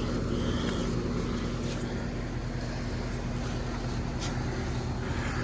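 Central air conditioner's outdoor condensing unit running: a steady electrical hum from the compressor and fan. It runs normally, having started right up once its disconnect was switched back on.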